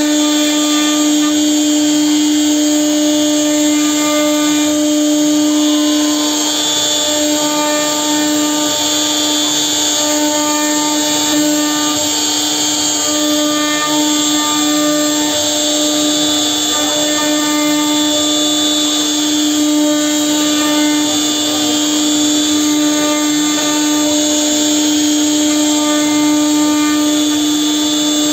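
CNC router spindle running steadily while its cutter mills grooves into a wooden door panel: a constant whine with a strong steady tone, over the hiss of the bit cutting wood.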